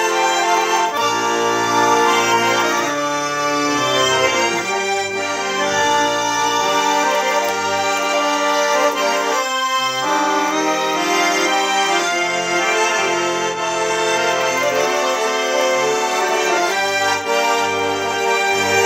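Russian-style button accordion (garmon) playing a lively folk tune, melody over bass-and-chord buttons pumped in a steady rhythm. The bass drops out for a moment about ten seconds in.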